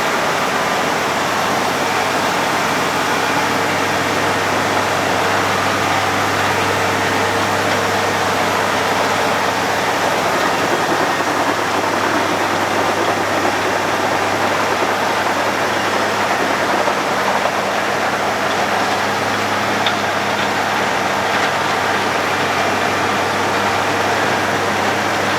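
Road planer (cold milling machine) working: a steady low engine hum under a constant broad grinding noise as the drum mills the road surface.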